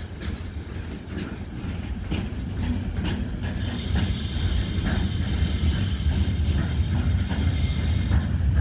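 Container freight train rolling past: a steady low rumble of wagons growing louder, with wheels clacking over the rails about once a second. A steady high-pitched squeal joins about three and a half seconds in.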